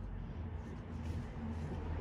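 AEG/Electrolux washing machine running with a carpet in the drum: a steady low hum under a rough, noisy wash, getting a little louder toward the end.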